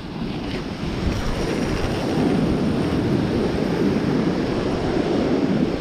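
Surf washing on the beach with wind buffeting the microphone: a steady rush that builds over the first second or so and then holds.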